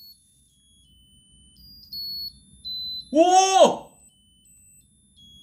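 Musical lotus birthday candle's electronic chip playing its tune as a string of faint, thin, high beeping notes. About three seconds in, a man lets out a loud, drawn-out 'ooh' of amazement over it.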